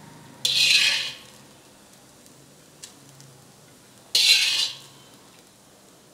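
Metal spoon scraping fried rice out of a metal wok and tipping it onto a plate: two short scrapes about three and a half seconds apart.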